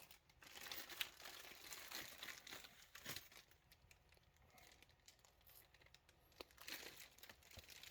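Faint handling noise: soft crinkling with scattered light clicks as small parts are handled.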